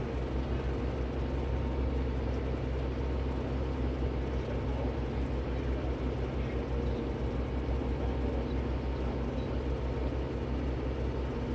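Loader tractor's engine running steadily, heard from inside the cab: a constant low engine note with no change in speed.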